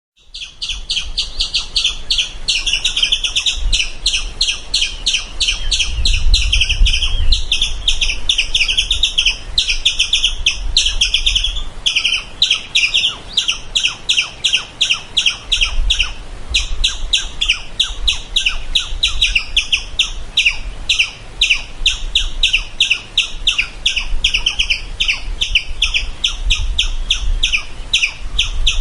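Squirrel chirping in a rapid, unbroken series of short high calls, several a second, with a low rumble underneath.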